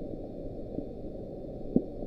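Sped-up NOAA hydrophone recording of the "Bloop" from the Pacific autonomous hydrophone array: steady low ocean noise, with a faint short pulse about a second in and a sharper brief thump near the end.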